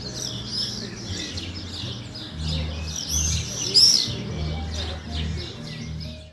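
Many small birds chirping and twittering, the loudest call a little before four seconds in, over a low hum that swells and fades.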